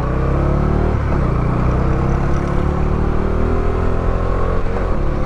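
Motorcycle engine pulling away and accelerating, its pitch rising slowly and steadily, easing off briefly near the end. Heard from inside the rider's helmet.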